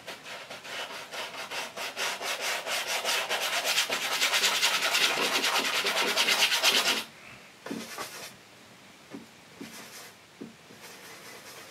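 Stiff bristle brush scrubbing oil paint onto a stretched canvas in fast back-and-forth strokes, several a second. The scrubbing stops about seven seconds in, leaving only a few light strokes.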